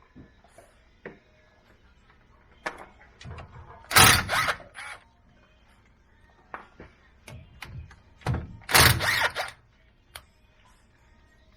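Milwaukee M18 cordless impact wrench hammering in short bursts, about four seconds in and twice more around eight to nine seconds, with light clicks and clinks of tools between.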